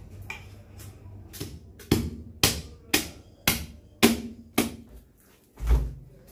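A series of sharp percussive knocks, about two a second for six strikes, then a single deeper, heavier thud near the end.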